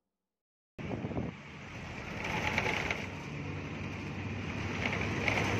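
Road traffic noise heard from a moving vehicle, with wind on the microphone and a low engine hum. It starts suddenly about a second in, after a moment of silence.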